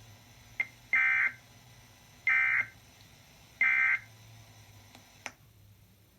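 Emergency Alert System end-of-message data bursts from a radio: three short buzzy bursts about 1.3 seconds apart, the signal that the severe thunderstorm warning has ended. A single click comes before the first burst and another after the last, over a low hum.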